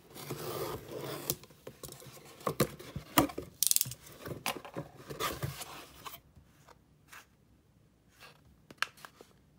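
A utility knife slitting packing tape on a cardboard box, a scraping cut, followed by sharp knocks and rustles as the cardboard flaps are opened and a kraft paper envelope is handled. It goes quieter after about six seconds, with only a few small clicks.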